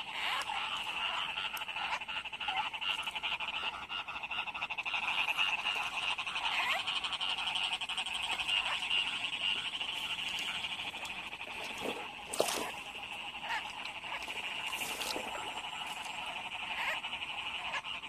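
Chorus of many field frogs calling together after heavy rain, a dense, steady chattering mass of calls. A brief sharp noise stands out about twelve seconds in.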